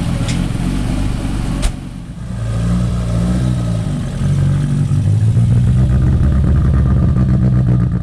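Rally car engine running at idle, cut off by a sharp click about two seconds in; then an Opel Kadett C GT/E rally car's engine revving as it pulls away, getting louder about halfway through and staying loud and steady.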